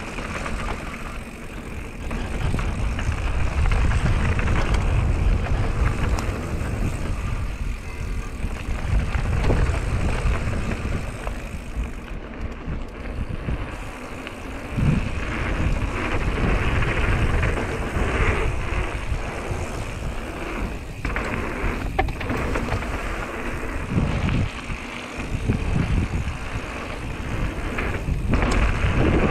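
Wind buffeting the camera microphone as a mountain bike rolls fast down a gravel trail, tyres crunching over the loose surface, with a few knocks from bumps.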